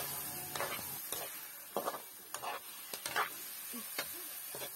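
Metal spatula scraping and knocking against a frying pan as raw chicken pieces are stirred in oil, in irregular strokes, over a faint steady sizzle.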